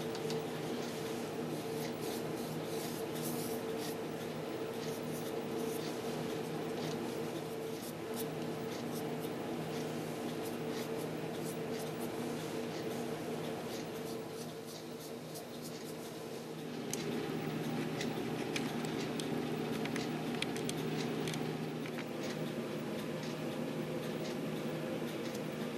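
Small paintbrush strokes and light scratchy clicks as paint is brushed onto a concrete statue, over a steady background hum that changes and gets louder about two-thirds of the way through.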